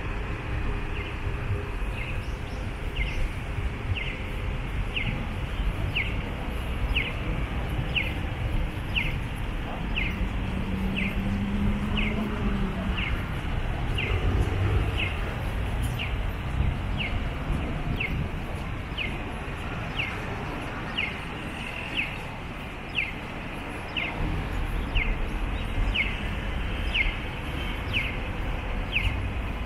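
A short falling chirp repeating evenly about once a second, over steady outdoor background noise.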